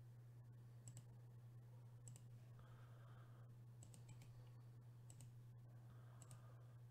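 Faint computer mouse clicks, about half a dozen and some in quick pairs, over a low steady hum.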